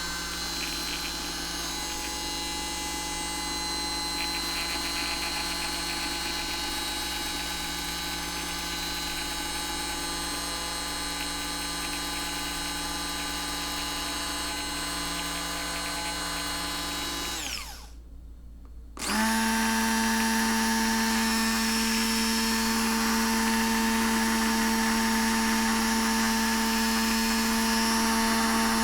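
Braun Multiquick Vario 5 hand blender motor running with a steady whine. About two-thirds of the way through it winds down and stops for about a second, then starts again louder and higher-pitched, at a faster speed setting.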